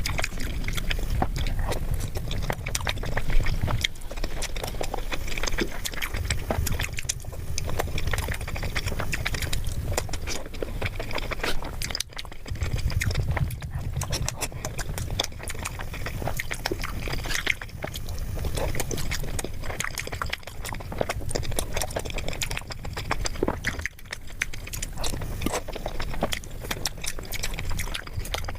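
Close-miked eating sounds: continuous chewing and biting with many small wet clicks.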